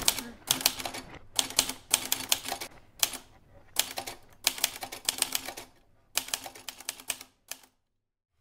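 Fast typing on a red manual typewriter: quick bursts of key strikes separated by short pauses. The typing stops abruptly about a second before the end.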